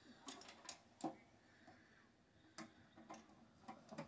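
Faint, irregular clicks and light knocks of hands working on the parts of a PC case, about half a dozen scattered over a few seconds.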